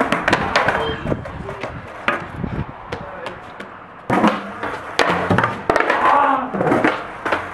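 Skateboard clattering onto tiled paving as a skater bails off a stair set, with several sharp knocks of the deck and wheels hitting the ground in the first second and again about four to five seconds in. People's voices call out near the end.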